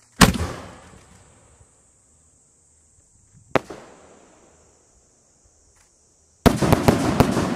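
Firework fired from a steel mortar tube: a loud launch bang just after the start that rings out and fades, a single sharp crack about three seconds later, then a rapid string of crackling bangs near the end.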